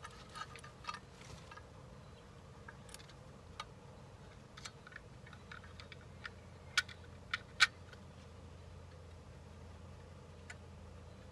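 Small metal clicks and taps from a 2010 Nissan Versa seat-belt retractor's parts being handled and fitted together by hand. A few scattered light clicks, with three sharper ones in quick succession about seven seconds in.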